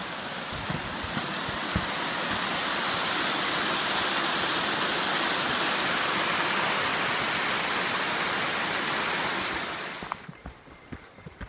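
Small mountain stream cascading over rocks: a steady rushing of white water that grows louder over the first few seconds and falls away about ten seconds in.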